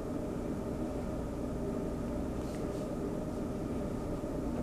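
Steady mechanical hum with a low rumble, like a motor or appliance running, unchanged throughout.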